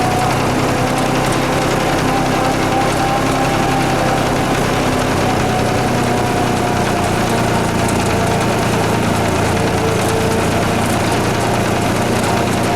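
Tractor engine running steadily at an even level, with faint tones that drift slightly in pitch.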